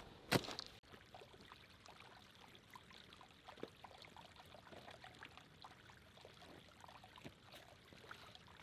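Hands and shoes scraping and knocking on rock for the first second, then giving way abruptly to a faint, steady trickle of a small woodland stream with small irregular drips.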